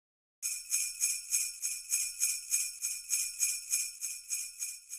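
Jingle bells shaken in a steady rhythm, about three shakes a second. The ringing starts suddenly about half a second in.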